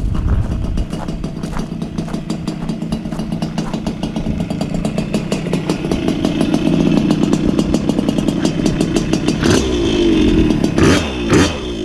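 Puch Maxi moped's 49 cc single-cylinder two-stroke engine running, growing steadily louder, then revving up and down several times near the end.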